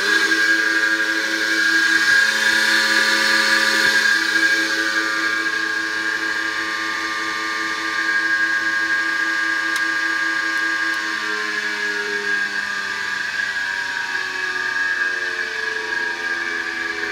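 Electric motor run at full speed from a soft starter, making a steady whine. About eleven seconds in the motor is stopped, and the pitch of its lower tones slides as it winds down.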